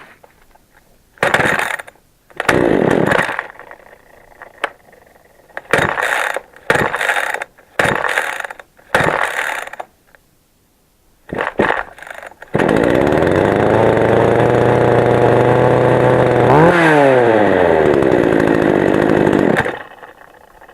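Makita EA3203S two-stroke chainsaw being pull-started: about seven short bursts from the starter pulls, then the engine catches about twelve seconds in and runs steadily. Its speed briefly dips and recovers, and it stops shortly before the end.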